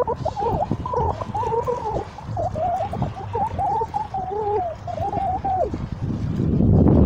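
Warbling, wavering calls, two at once, rising and falling quickly, which stop about six seconds in; then wind rushes on the microphone.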